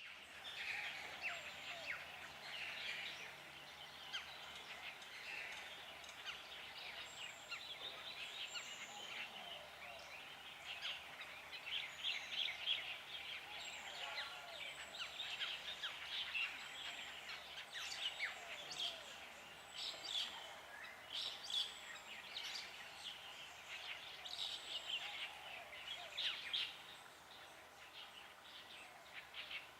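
Dense chorus of many wild birds calling and singing over one another: countless short calls and trills overlapping, with brief high whistles above and some lower calls beneath.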